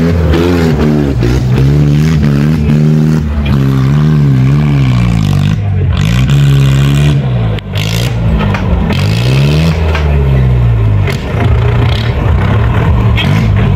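A modified off-road Mahindra jeep's engine is revving hard under load as it climbs loose dirt. Its pitch rises and falls about once a second as the throttle is worked on and off.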